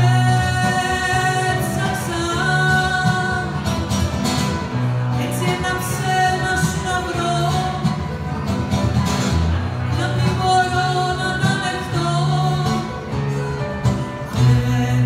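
Woman singing a Greek song live, accompanied by acoustic guitar and piano.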